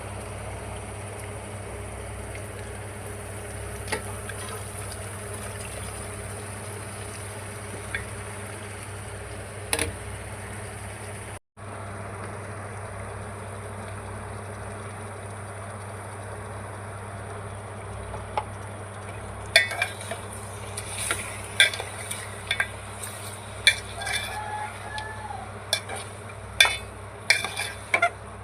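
Chicken and yellow cucumber curry sizzling in a pan with a steady hiss. From about two-thirds of the way in, a spoon stirs it, clinking and scraping against the pan many times.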